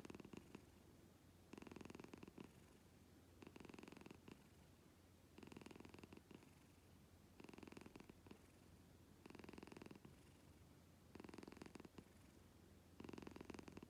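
Domestic cat purring in a heavy, snore-like way, swelling with each breath about every two seconds.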